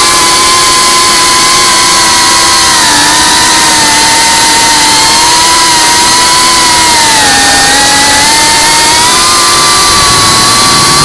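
FPV quadcopter's electric motors and propellers whining as heard on its onboard camera, with heavy airflow hiss. The pitch wanders with the throttle, dipping about seven seconds in and stepping up near the end.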